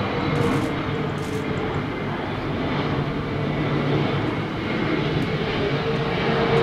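Boeing 777-300ER's GE90-115B turbofan engines running at approach power as the airliner passes on final approach with gear down: a steady jet noise with a low hum under it.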